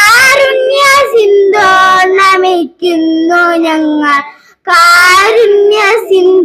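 A group of young girls singing a prayer song in unison, the lead girl singing into a handheld microphone. They sing in phrases with long held notes and pause briefly for breath twice.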